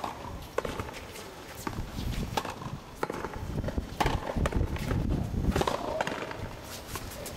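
Frontenis rally: a small rubber ball struck by stringed rackets and smacking off the concrete front wall, an irregular series of sharp knocks about a second apart.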